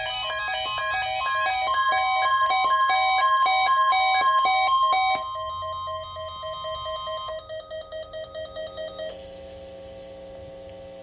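Emergency Alert System test tones received over radio. Several steady electronic tones sound at once with a rapid pulsing for about five seconds, then change and drop to a quieter single steady tone a few seconds later.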